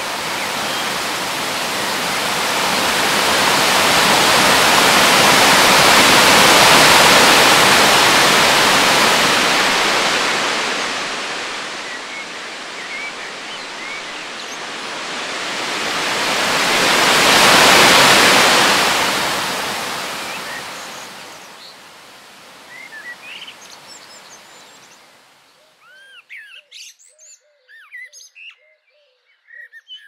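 Rushing roar of a large waterfall, swelling louder twice and then fading away. Small birds chirp over it as it fades, and alone near the end.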